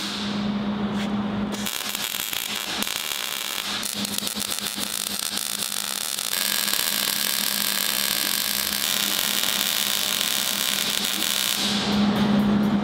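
MIG welder arc crackling and sizzling as beads are run on a steel car frame rail. A low steady hum joins near the end.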